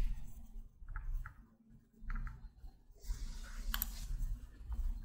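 A few soft computer mouse clicks, a sharper one near the end, over a low steady background hum.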